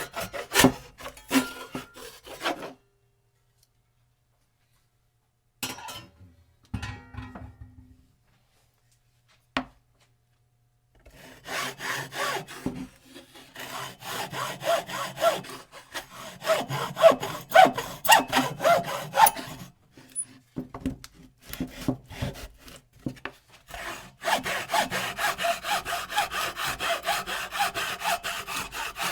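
Hand saw cutting in quick back-and-forth strokes. The sawing stops for several seconds after about three seconds, with only a few brief scrapes. It then resumes in longer, steady runs of fast strokes.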